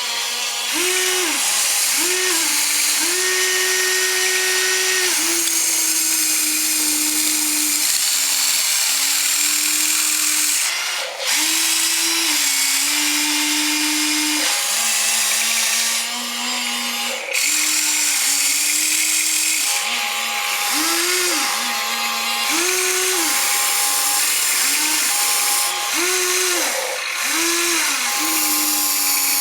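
Small electric motor whining, its pitch rising and falling over and over as it speeds up and slows, over a steady high hiss.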